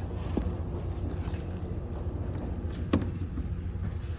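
A display pistol being handled on a store counter gives a sharp click about three seconds in, with a smaller knock near the start, over a steady low room hum.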